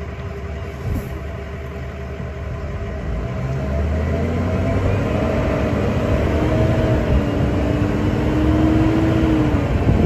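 Open-air safari tram's engine running under way, a steady low rumble that grows louder about a third of the way in, with a humming whine over it that fades out near the end.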